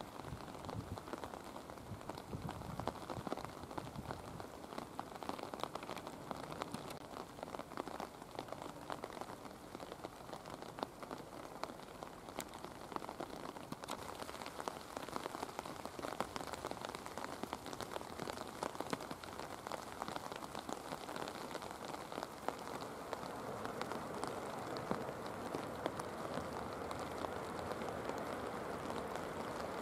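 Heavy rain falling, a steady rush with many close raindrops ticking and tapping. The rush grows a little louder over the last several seconds.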